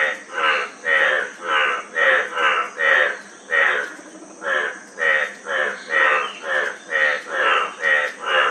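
Frogs croaking in a steady rhythm, about two short pulsed croaks a second, with a brief pause about four seconds in, over a steady high insect drone.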